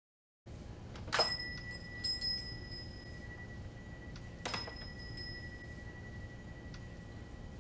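Silence, then a low room hum comes up about half a second in. A sharp metallic clink about a second in leaves a clear bell-like ring hanging for several seconds, followed by a couple of lighter clinks and a second clink with its own ring near the middle.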